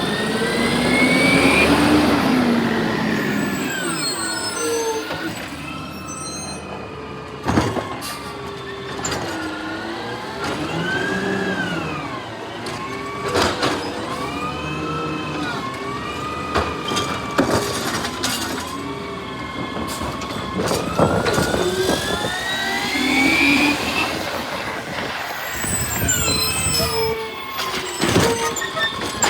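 Garbage truck's engine revving up and falling back again and again, with a few sharp knocks along the way.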